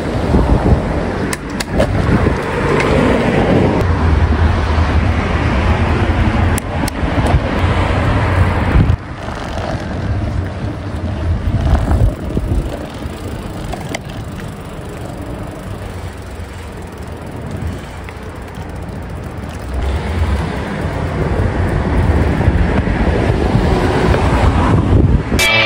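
Wind rushing over the microphone with road and tyre noise while riding a bicycle, quieter from about nine seconds in and building again near the end. Music starts just as it ends.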